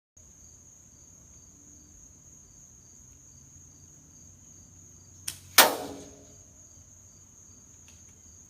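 Insects chirping steadily, a high buzz with a regular pulsed chirp two or three times a second. About five seconds in comes a faint click, then a single loud, sharp crack that rings briefly as it dies away.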